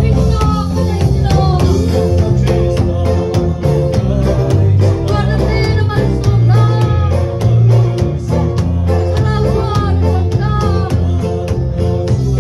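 Live worship music: a congregation singing a hymn together over a steady drum beat with instrumental accompaniment.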